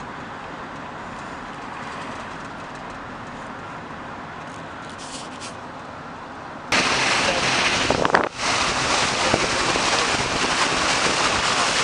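Steady road noise inside a moving car. About seven seconds in it cuts to much louder wind buffeting the microphone aboard a boat on open water.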